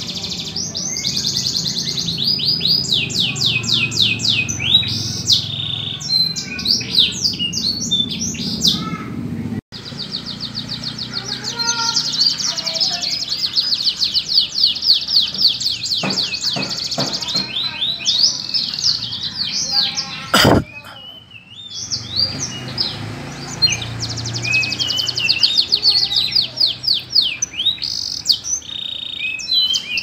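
Domestic canary singing a long, fast song of rapid trills and rolling phrases, with a short gap about ten seconds in. A single sharp knock sounds about two-thirds of the way through, followed by a brief lull in the song.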